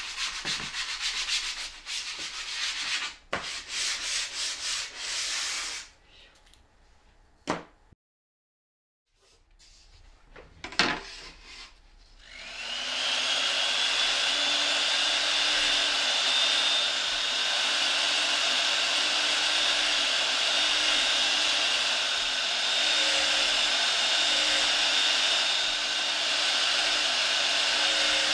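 Sandpaper rubbed by hand in quick strokes along the edges of a plywood piece. After a short quiet gap with a couple of knocks, a drill press motor spins up with a rising whine about halfway through and then runs steadily as its bit drills into the plywood.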